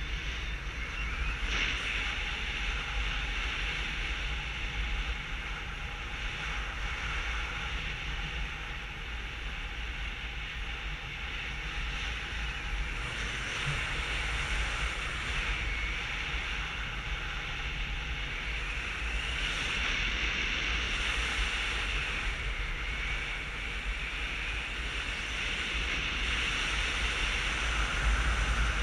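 Wind rushing over a GoPro's microphone in paraglider flight: a steady wind noise with a heavy low rumble, growing a little louder near the end.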